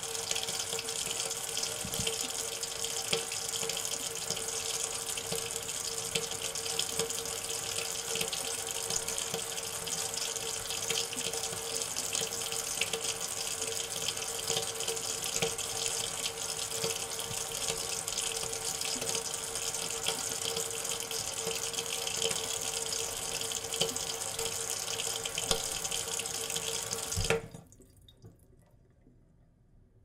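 Kitchen sink tap running steadily, the stream splashing into the basin with a steady tone under the splash. It cuts off suddenly near the end with a single knock as the tap is closed.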